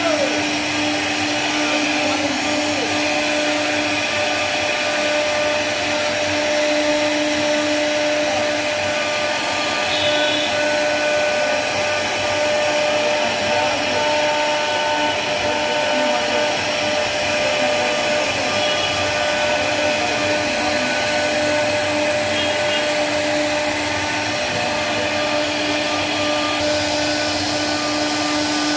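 CNC router spindle carving a relief pattern into a wooden door panel: a steady whine over the continuous hiss of the bit cutting wood.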